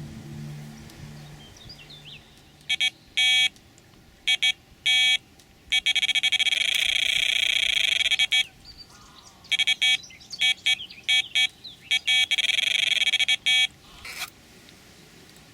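Electronic carp bite alarm sounding: a series of short bleeps, then a long unbroken tone about six seconds in, then more bleeps and another held tone.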